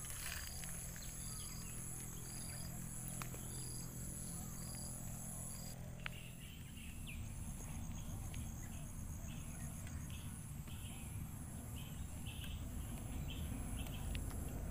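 Insects chirping in an even, repeating pulse over outdoor ambience, with a few faint clicks.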